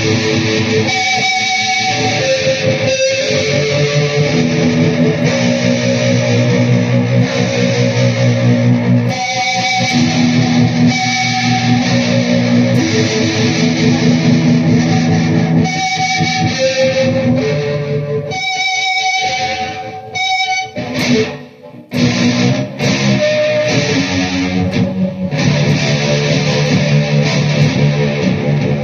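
Electric guitar played through a Peavey VYPYR X2 amplifier: sustained chords and notes ringing on, with a brief gap about twenty seconds in.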